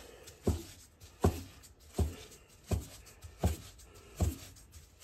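Metal bench scraper chopping a breadcrumb-coated roll of pandesal dough into pieces, each stroke a dull thud of the blade through the dough onto a silicone baking mat. About seven chops in an even rhythm, one every three-quarters of a second.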